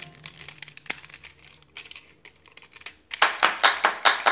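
Faint clicks and rattles of a plastic Transformers toy's parts being handled and moved. About three seconds in, a loud, fast, even run of sharp taps starts, about four to five a second.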